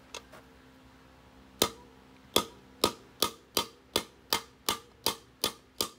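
Steel hammer striking a punch held against the hub of a drum brake, about eleven ringing metal-on-metal blows that begin about a second and a half in and quicken to about three a second.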